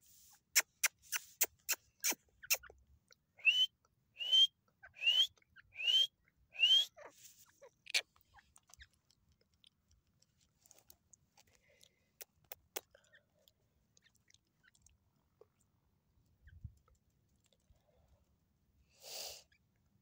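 Grey francolin (teetar) calling: a quick run of about eight sharp clicks, then five short rising whistled notes a little under a second apart.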